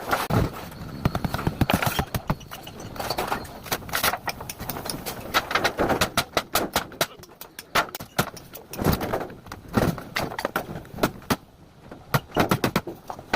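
Irregular knocks and clanks, in quick runs with short gaps, from a refrigerator being broken up for scrap.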